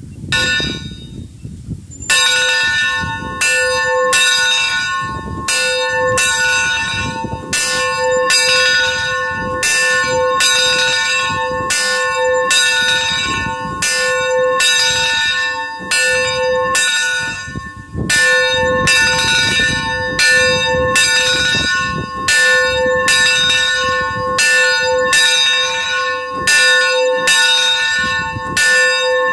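Brass steam-locomotive bell rung by its pull rope, the clapper striking about once a second in a steady swinging rhythm, each stroke ringing on with a clear bell tone. The regular ringing starts about two seconds in.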